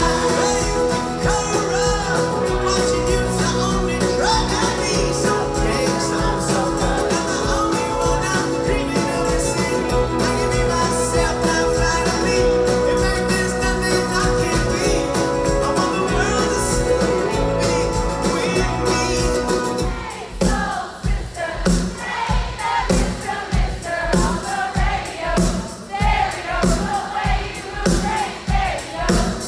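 Live pop-rock band music with singing, played through a large concert PA. About twenty seconds in, the full band drops away to a sparse, regular drum beat with voices singing over it.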